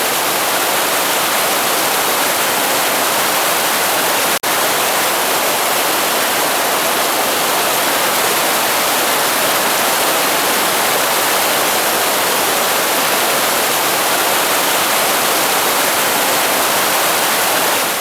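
Rushing white water of a mountain headwater stream, a loud, even rush with no other sounds over it, briefly cut off for an instant about four and a half seconds in.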